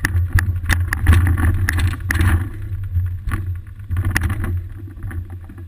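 Bicycle riding over pavement, heard through a GoPro Hero 2 mounted on the seat post: a steady low rumble of road vibration with many sharp knocks and rattles from bumps.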